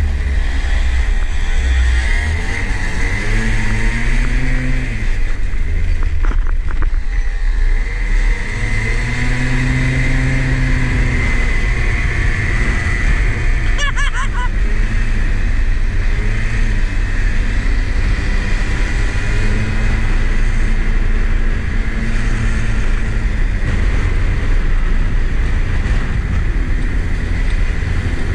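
Small go-kart engine running as the kart is driven along a street, its pitch rising and falling several times as it speeds up and eases off, over a heavy steady low rumble.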